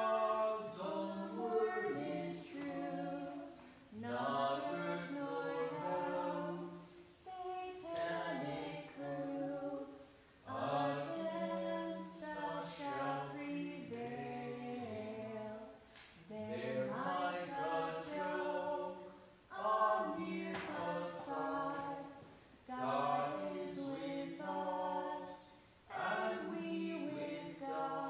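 A choir singing a hymn in harmony, phrase by phrase, with short breaks for breath every few seconds.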